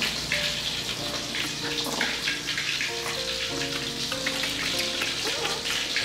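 Background music, a simple melody of held notes, over a steady crackling hiss.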